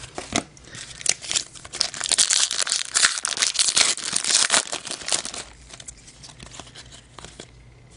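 Foil trading-card pack wrapper crinkling and tearing as it is opened by hand, densest in the first half and fading to lighter rustling near the end.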